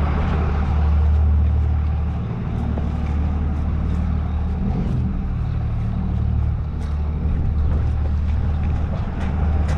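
Turbo diesel pickup truck engine running steadily, a constant low drone.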